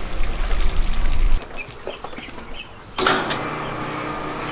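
Low rumble and a few short bird chirps, then from about three seconds in a truck-mounted crane's truck engine running steadily with an even hum.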